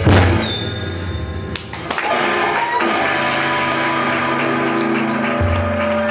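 Live rock band playing: a loud drum-and-cymbal hit at the start dies away, then electric guitar chords and held notes ring on with few drum strokes, and a deep bass note comes back in about five seconds in.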